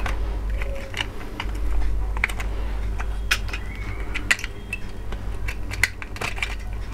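Irregular small clicks and taps of metal tweezers and hands against the plastic body and battery box of a toy dog, over a steady low hum.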